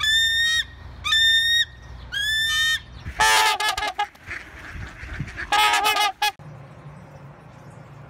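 A bird gives three high, clear calls about a second apart, then a swan gives two loud runs of honking calls, each under a second long. A low steady hum follows.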